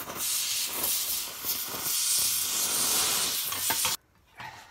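Oxy-fuel torch flame hissing steadily as it heats a bent steel axle bracket red-hot for straightening. The hiss cuts off suddenly about four seconds in, leaving a few faint metallic clinks.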